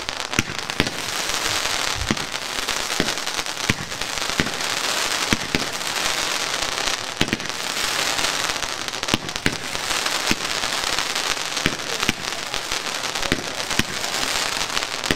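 Klasse 2 consumer fireworks firing glittering spark trails into the sky: a steady hiss that swells and fades in waves, with sharp cracks and pops going off throughout.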